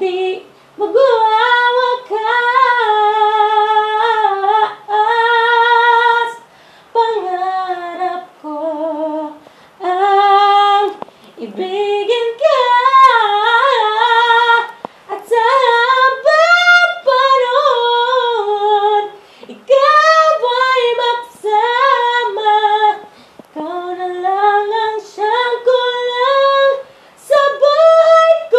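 A woman singing solo without accompaniment, a high melody in phrases with vibrato on the held notes and short pauses for breath between them. The voice echoes a little, as in a small tiled room.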